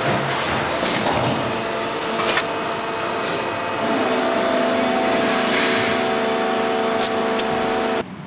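Plastic injection-moulding machines and their conveyor running on the factory floor: a continuous mechanical noise with scattered sharp clicks and clatter. A steadier hum of several tones joins about halfway through, and the sound cuts off suddenly near the end.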